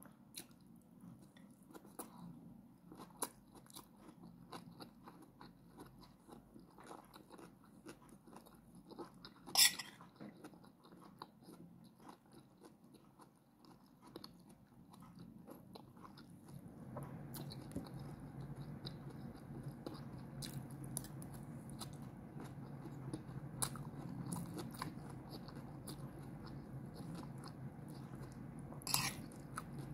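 Close-up chewing of a mouthful of rice and sautéed bitter gourd with egg: soft wet mouth clicks and smacks throughout, with two sharper clicks, one about a third of the way in and one near the end. A low steady hum comes in about halfway.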